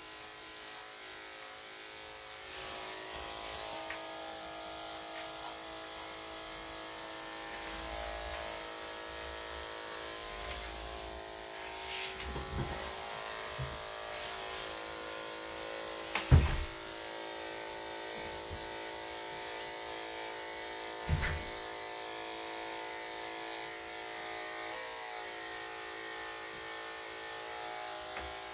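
Electric dog grooming clippers with a number 10 blade running with a steady hum while shaving a dog's inner legs and underside. A few sharp knocks cut in, the loudest about sixteen seconds in.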